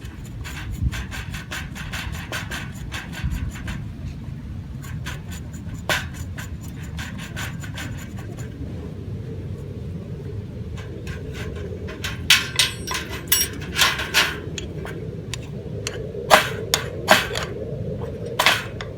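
Irregular knocks, clicks and scrapes over a steady low rumble, growing denser and louder in the second half.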